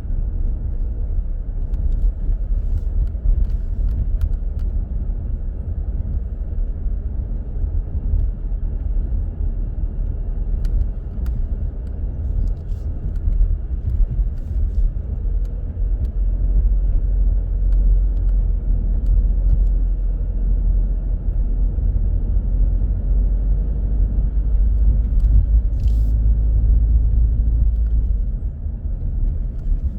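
A car driving in city traffic: a steady deep rumble of engine and road noise, which gets heavier for a stretch from about halfway through until near the end.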